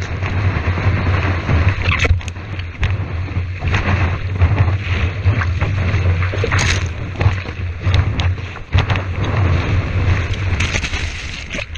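Whitewater rushing and splashing around a surfboard riding a broken wave, heard through a board-mounted GoPro, with heavy wind rumble on the microphone. Spray hits the camera in many short splashes.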